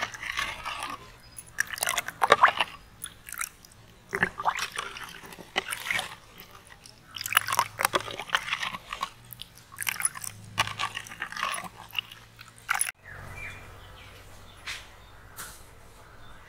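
Steel spoons stirring drink mix in glass bowls, scraping and clinking irregularly against the glass. The stirring stops suddenly about thirteen seconds in, leaving a faint steady background.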